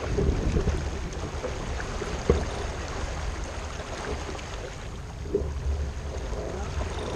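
Water rushing and splashing along the hull of a J/105 sailboat under sail, with wind buffeting the microphone in an uneven low rumble. A single sharp knock sounds about two seconds in.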